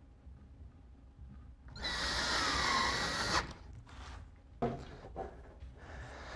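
Screw gun driving a screw to mount a towel bar end on the wall, running for about a second and a half with a motor whine that dips and then rises in pitch. A few light knocks and handling sounds follow.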